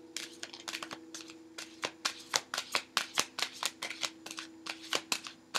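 A deck of oracle cards being shuffled by hand: a quick run of soft card slaps and riffles, about five a second, getting louder about two seconds in.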